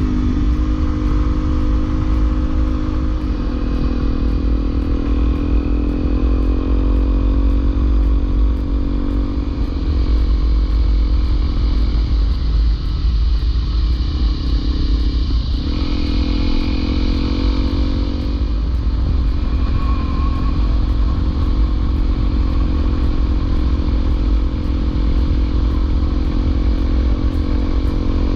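Honda CRF250L's single-cylinder four-stroke engine running as the bike is ridden along a trail, its note rising and falling with the throttle and dropping briefly, then jumping up again, about halfway through. Heavy wind rumble on the microphone runs underneath.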